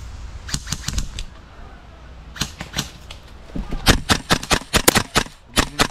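Tokyo Marui MK18 gas-blowback airsoft rifle firing strings of sharp shots: a few about half a second in, a few more near two and a half seconds, then the loudest, fastest run of about ten shots between about three and a half and five seconds, and two or three last shots near the end.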